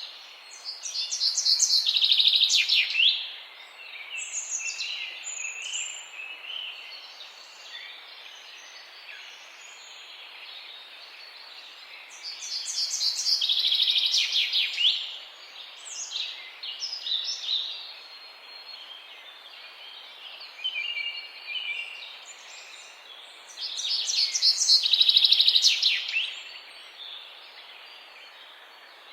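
Birds singing: a loud song phrase of rapid high notes comes three times, about eleven seconds apart, with softer chirps in between over a steady background hiss.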